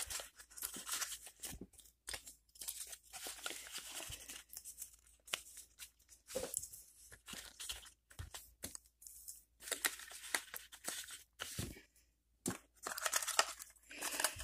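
Cardboard packaging and a foam insert being handled and pushed back into a box: irregular rustling and scraping with a few light knocks.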